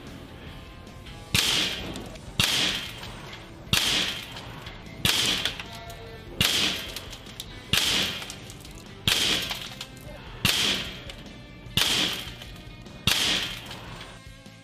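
Ten sharp shots from a Weihrauch HW44 PCP air pistol firing .22 pellets, evenly paced about one every 1.3 seconds, each trailing off briefly.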